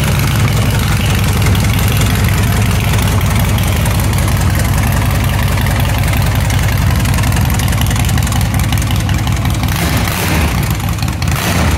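Large V-twin cruiser motorcycle engine idling steadily.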